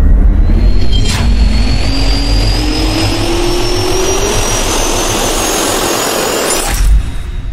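Jet engine spool-up sound effect: a rising turbine whine over a loud rush of noise, with a sharp click about a second in and a low hit near the end.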